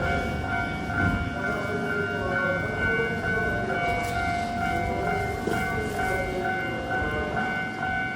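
Japanese level crossing warning bells ringing in a steady, repeating clang, over the rumble of a Keisei Main Line train passing the crossing.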